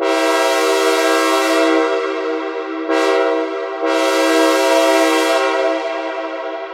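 Synthesizer imitation of a Nathan C5A locomotive air horn: a sustained multi-note horn chord sounded as a long blast, a short blast about three seconds in, and another long blast that fades out with an echo near the end.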